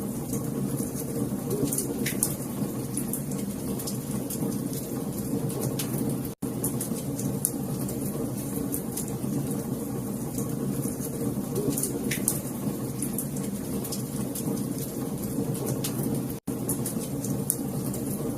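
Wood fire crackling, a steady low rumble and hiss with scattered sharp pops and snaps. The sound cuts out for an instant twice, about six and sixteen seconds in.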